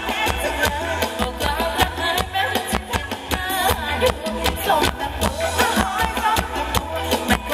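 Live band playing upbeat ramwong dance music with a steady, driving drumbeat and percussion under a melody.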